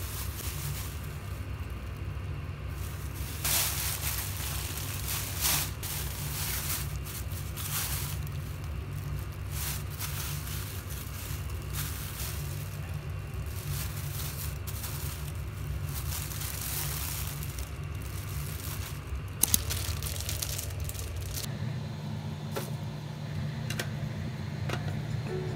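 Thin plastic produce bags rustling and crinkling in irregular bursts as they are handled, over a steady low hum.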